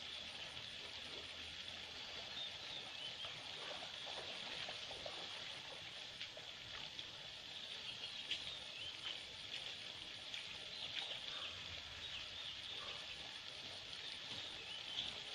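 Steady chorus of tropical insects, a continuous high chirring, over the faint trickle of a shallow stream, with a few soft splashes and knocks as a person wades through the water.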